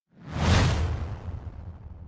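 Fast, distorted whoosh sound effect: a sudden rushing swell with a low rumble beneath, peaking about half a second in and then fading away slowly.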